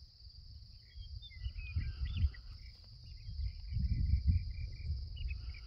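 Evening insect chorus, a steady high chirring, with scattered short chirps and a quick run of repeated notes about five seconds in. Low rumbling swells, loudest around two and four seconds in, run underneath.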